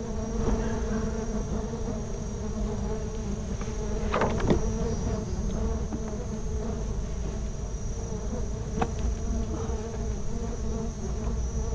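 A swarm of stingless bees buzzing steadily around their opened nest, with a couple of short knocks about four and nine seconds in.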